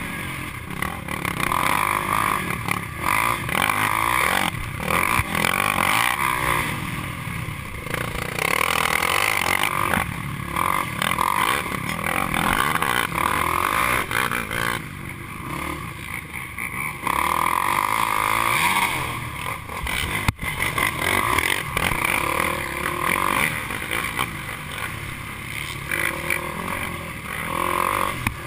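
Sport quad's engine revving hard and backing off again and again under racing throttle, heard from the rider's helmet.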